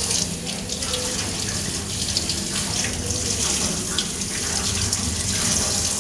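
Tap water running steadily into a stainless steel sink and colander as raw chicken is rinsed under the stream, with irregular splashes as the hands turn the meat.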